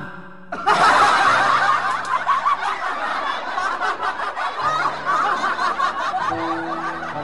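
Canned laughter: a crowd laughing, starting about a second in, over soft background music.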